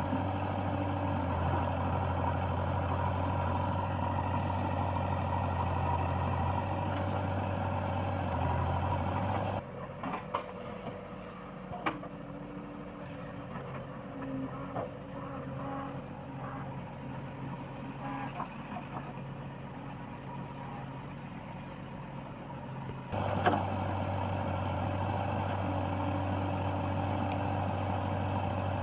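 Heavy diesel engine running steadily. About ten seconds in it cuts abruptly to a quieter, duller stretch of engine sound with scattered knocks, and it returns to the louder steady running about two-thirds of the way through.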